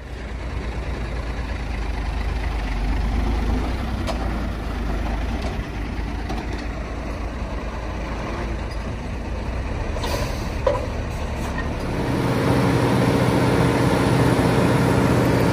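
Truck engine running, getting louder about twelve seconds in as a steady engine note comes up.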